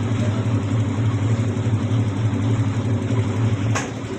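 Whirlpool White Magic Royal Plus 7 kg top-loading washing machine running steadily in spin with a low hum. About 3.8 s in there is a sharp click and the sound drops in level. This is the test spin with newly replaced suspension rods.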